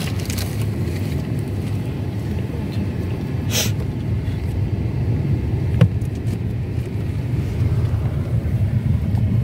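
Car driving slowly, heard from inside the cabin as a steady low road-and-engine rumble. A short hiss comes about three and a half seconds in and a sharp click near six seconds.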